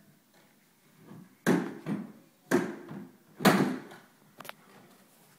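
Hollow plastic knocks as a toddler bangs on a plastic ride-on toy car, three loud knocks about a second apart, then a smaller click with a short squeak.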